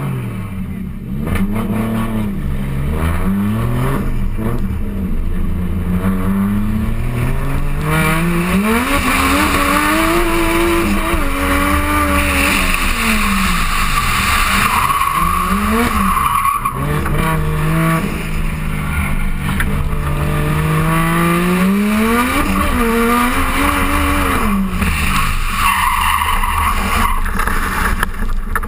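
Competition car engine heard from a camera on the car's side, revving hard with its pitch repeatedly climbing and falling under throttle and gear changes, and tyres squealing as the car slides sideways, loudest about midway and again near the end.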